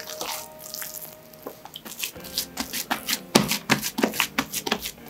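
Hands patting and pressing a soft, buttered sheet of brioche dough flat on a countertop: a run of soft slaps and squishes, several a second, starting about two seconds in after the dough is folded over.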